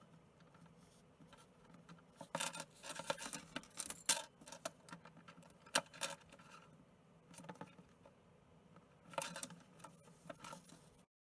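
Cockatiel playing with its toys: irregular rattling and jangling with sharp clicks, coming in bursts after a quiet first couple of seconds.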